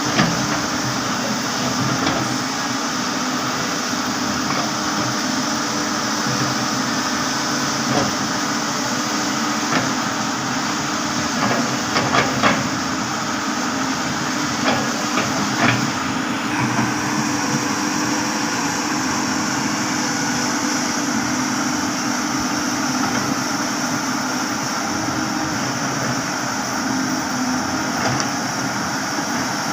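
Hydraulic excavator's diesel engine running steadily under working load, with a few sharp metallic clanks, several clustered around the middle.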